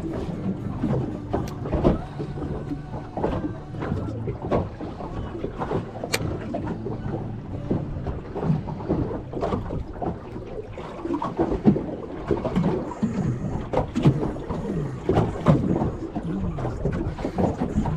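Water slapping and knocking against the hull of a small fishing boat, in irregular knocks, over a low steady hum and wind on the microphone.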